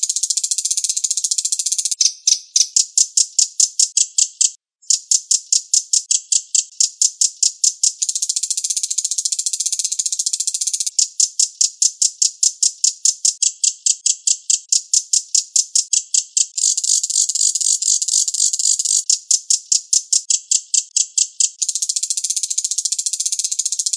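Reno bird song for training songbirds: a fast, harsh chattering of sharp repeated notes, about five or six a second, alternating with dense unbroken rattling trills. It breaks off briefly about four and a half seconds in.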